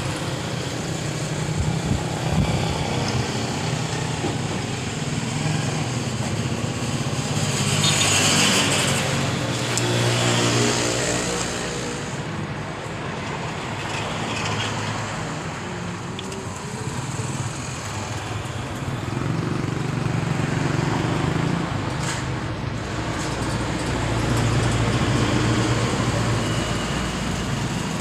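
Passing road traffic: motor vehicle engines run and go by one after another, swelling and fading, loudest about a third of the way in and again near the end.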